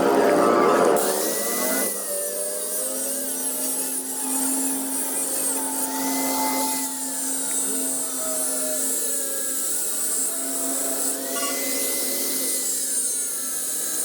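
A power tool running on metal, its pitch rising, holding and falling again about every five seconds.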